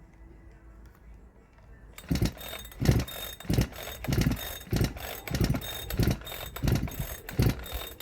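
Chinese MS360-clone chainsaw being pull-started over and over: about ten quick pulls on the starter cord from about two seconds in, each a thud and rattle of the recoil starter and cranking engine. The engine never fires, because the ignition is giving no spark.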